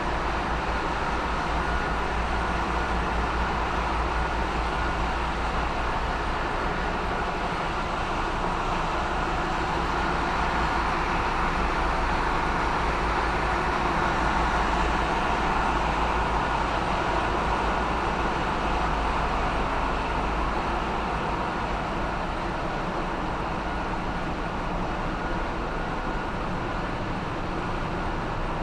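Steady, dense machinery din of a bulk carrier's engine room with its diesel plant running, a low rumble under a broad whirring noise that swells a little partway through.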